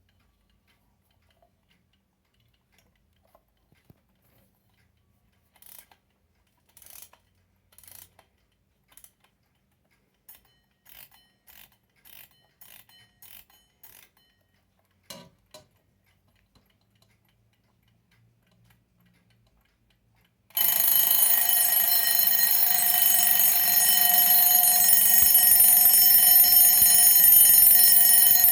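A Herweg alarm clock: a run of small scattered clicks, then about twenty seconds in its alarm bell starts ringing loudly and continuously without a break.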